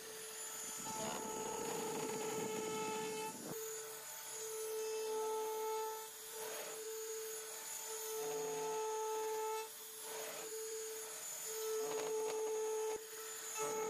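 Router running with a carbide-insert flattening bit, making a shallow first pass across an end-grain board to take off hardened glue: a steady high motor whine with a rough cutting rasp, strongest a second or two in, the whine broken by several short gaps.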